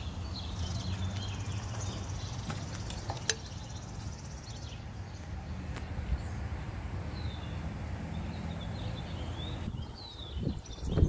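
Birds chirping over a steady low hum, with one sharp click about three seconds in and a few knocks near the end.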